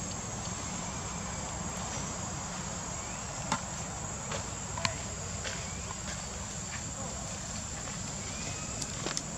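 Insects droning steadily at a high pitch over a low steady rumble, with a few sharp clicks about halfway through and near the end.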